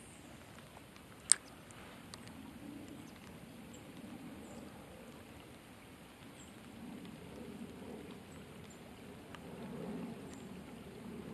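Steady rain falling on a lake, a soft even patter with faint scattered drop ticks. A single sharp click about a second in is the loudest sound.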